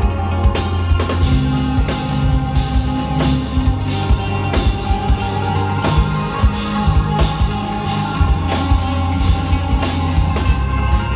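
Instrumental progressive metal played live by a band: electric guitars riffing over a drum kit, with heavy low notes and drum hits at a steady pulse.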